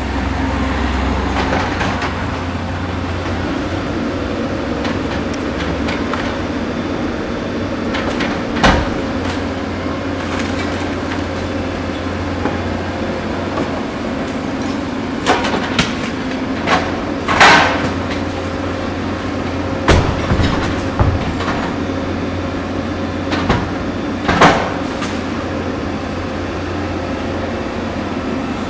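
Diesel engine of a Doosan tracked hydraulic excavator running steadily while its demolition grapple breaks up the building's masonry: a scattered series of sharp crashes and knocks of concrete and rubble, bunched in the middle, the loudest a little past halfway.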